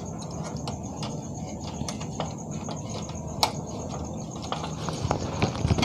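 Scattered light clicks and rattles of metal and plastic parts being handled and pushed into place in a Canon iR6000 copier's automatic document feeder, with one sharper click about three and a half seconds in.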